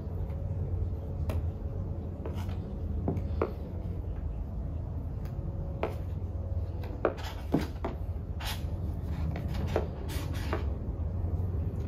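Plastic squeegee scraping in short, irregular strokes across wet paint protection film on a car headlight, pressing the slip solution out from under the film, with a few sharper clicks; a steady low hum runs underneath.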